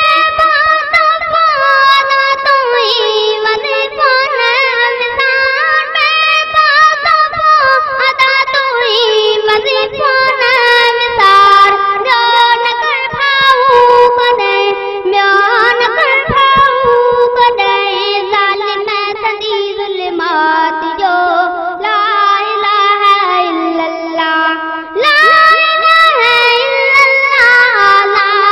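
A boy's voice singing a Sindhi hamd, a devotional hymn in praise of God, in long, wavering melodic lines without a break.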